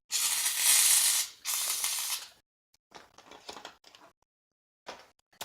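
Aerosol shaving cream can spraying in two bursts, a hiss of a little over a second and then a shorter one, followed by faint clicks and rustles.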